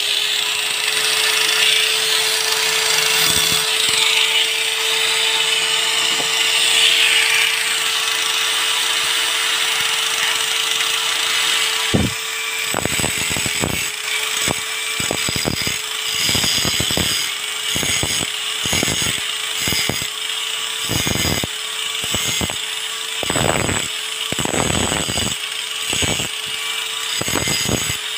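Angle grinder running with a steady high motor whine while its grinding disc is worked against the steel head of a claw hammer, taking off rust. A heavy grinding noise comes first, then, from about halfway through, a run of short, separate scraping contacts.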